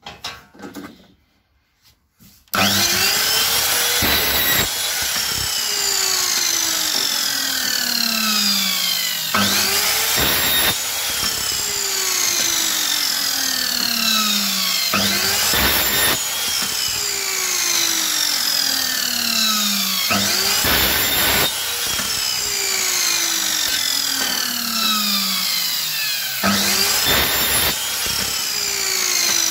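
Miter saw cutting square aluminium profiles. About five cycles, each with the motor winding up, a short loud cut through the metal, and a falling whine as the blade spins down, every five to six seconds.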